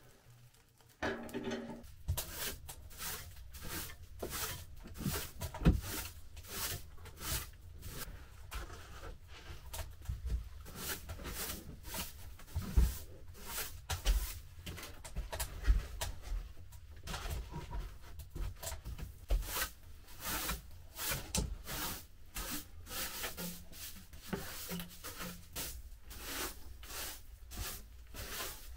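Broom sweeping a wooden plank floor in quick, repeated brushing strokes, about two a second, with a few light knocks mixed in.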